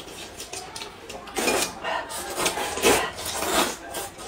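Noodles being slurped from bowls of soup, in several noisy bursts, the loudest about a second and a half in and near three seconds.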